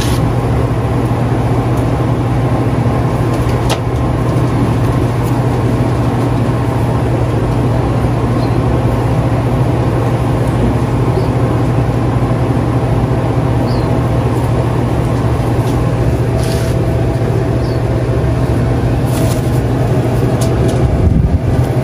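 A loud, steady low mechanical hum holding one unchanging pitch, with a few faint clicks.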